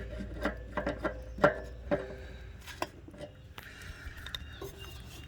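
Wrench clinking and knocking on the hex head of an RV water heater's anode rod as it is worked loose: a string of sharp metallic clicks in the first three seconds, the loudest about a second and a half in.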